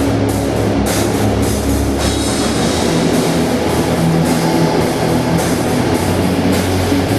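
Symphonic metal band playing live at a sound check: a drum kit with repeated cymbal crashes over bass and guitars, loud and unbroken.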